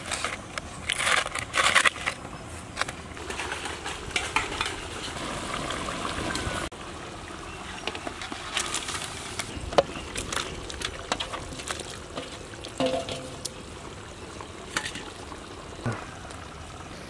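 A pot of curry simmering and sizzling over a wood fire, with scattered clinks and scrapes of metal utensils against the aluminium pot, most of them in the first two seconds. Pieces of stingray are tipped in from a steel plate.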